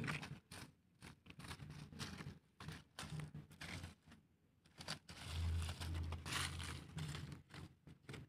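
Dry fallen teak leaves crunching and crinkling in irregular crackles, with a louder, duller rustling stretch from about five to seven seconds in.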